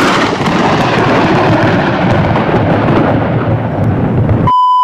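Loud thunder rumbling from a storm, its crackly upper edge fading over a few seconds while the deep rumble carries on. Near the end the rumble cuts off abruptly and a brief high beep sounds.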